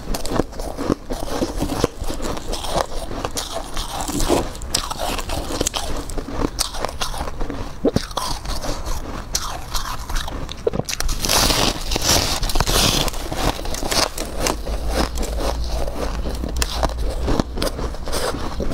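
Biting and chewing chunks of refrozen freezer frost: a dense run of crisp crunches, with a louder, fuller burst of crunching about eleven seconds in.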